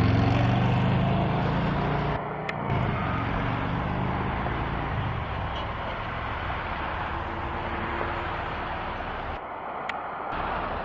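Fire department vehicle driving by on a call, its engine loud for the first couple of seconds and then easing off into steady road noise.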